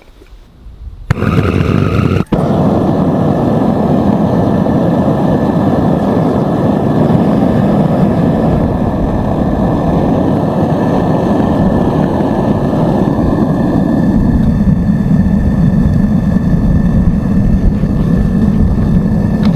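Gas burner of a small Vevor melting furnace firing steadily, a loud, even rushing noise that starts about a second in, with one brief break a little after two seconds. The furnace is heating a graphite crucible of copper to melting.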